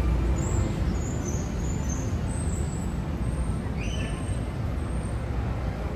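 Street traffic: a steady low rumble of passing vehicles, with a brief rising high-pitched squeak about four seconds in.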